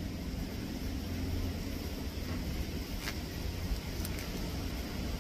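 Steady low background rumble, with a few faint clicks and rustles as string is pulled tight around a plastic-wrapped air-layering bag.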